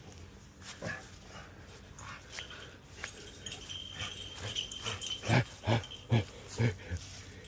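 Dog sounds: scattered faint noises at first, then from about two-thirds of the way in a quick run of short, evenly spaced sounds, about two or three a second.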